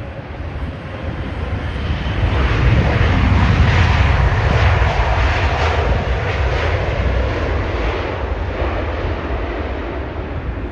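Jet airliner passing low overhead on its landing approach, the engine noise swelling to a loud peak a few seconds in and then slowly fading away.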